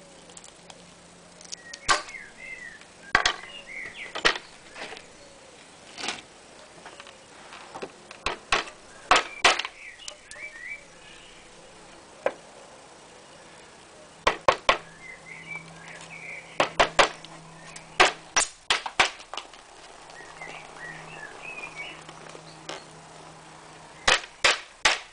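Steel hammer knocking 10 mm wooden dowels into snug 10 mm holes drilled in marine plywood. The sharp knocks come singly or in quick runs of two to four, with pauses between.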